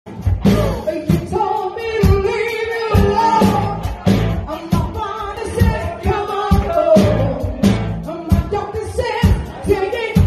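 A woman singing with a live band, over drums and electric guitar, with a steady beat of about two drum hits a second.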